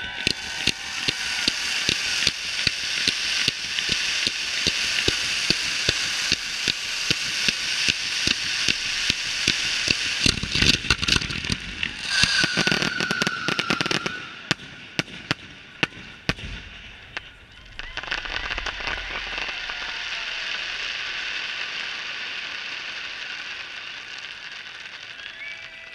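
Fireworks display at its finale: a dense crackling barrage with rapid sharp bangs, loudest about halfway, with a falling whistle among them. The bangs then thin out and stop, leaving an even hiss that slowly fades.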